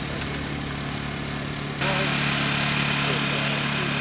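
Small portable generator engine running steadily with a low hum. About two seconds in, it gets suddenly louder, and a rushing hiss joins it.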